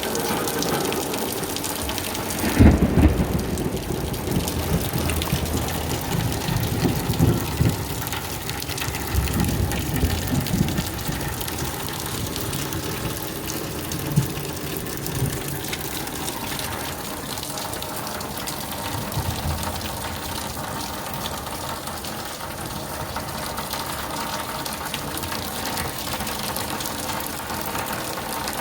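Rain falling steadily in a thunderstorm, with thunder rumbling heavily about two and a half seconds in, again several times between about six and eleven seconds, and more faintly after that.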